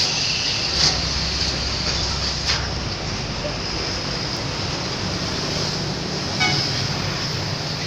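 Bus engines running with a steady low rumble and a high hiss. A short blast of a multi-tone bus horn comes about six and a half seconds in.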